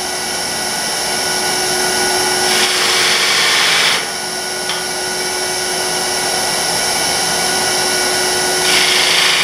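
Wood lathe running with a steady hum while the point of a skew chisel cuts a small channel into a spinning maple cane blank. A hissing cut comes about two and a half seconds in and lasts over a second, and another comes near the end.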